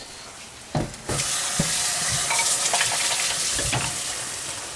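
A frying pan of tomato, pepper and meat sauce on a gas burner. A knock comes about a second in, then a loud sizzle starts suddenly, with a few knocks of a spatula stirring in the pan. The sizzle eases off near the end.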